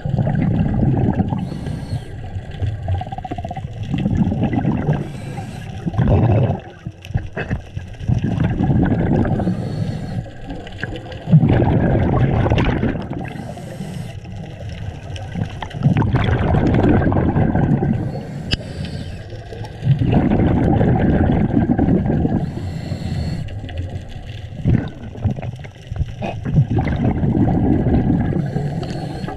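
Scuba diver breathing underwater through a regulator: exhaled bubbles gurgling in swells about every four seconds, with a short hiss of the regulator between them.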